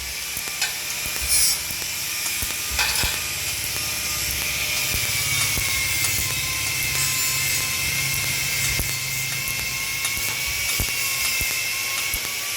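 TIG welding arc on stainless steel, a steady buzzing hiss with a faint high whine and a low hum underneath.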